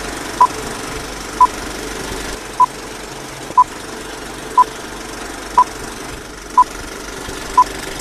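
Countdown-leader beeps: a short electronic beep about once a second, all at the same pitch, over a steady mechanical rattle.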